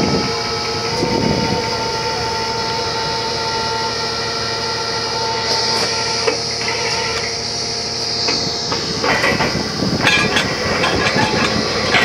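Truck-mounted borewell drilling rig running with a steady mechanical drone and whine. From about nine seconds in, metallic rattling and clanking grows over it.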